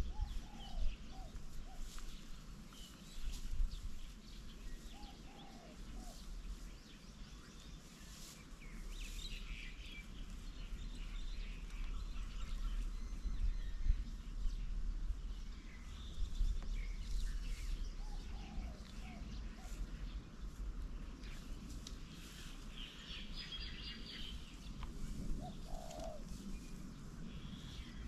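A dove cooing in short phrases of a few low notes, repeated several times, among the chirps of smaller birds, over a steady low rumble.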